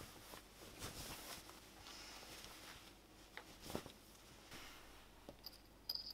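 Faint, soft rustling of bedding and cotton pyjamas as someone shifts and gets up from a bed, with a couple of light clicks near the end.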